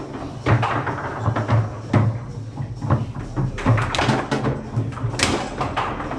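Foosball table in play: sharp knocks and clacks of the ball being struck by the plastic men and hitting the table, coming at irregular intervals about every half second.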